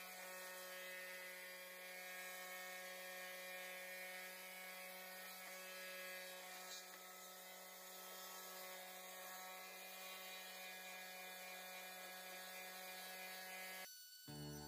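Electric orbital sander running with a steady motor hum as it sands the wooden staves of a wine barrel, dropping out briefly near the end.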